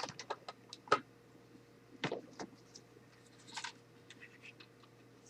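Cardboard box and paper contents being handled: a quick run of small clicks and taps, then short light rustles and scrapes as a card is slid out.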